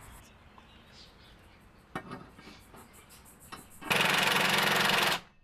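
Impact wrench hammering steadily for just over a second near the end, running a subframe bolt down; before it, faint clicks and knocks of hand tools.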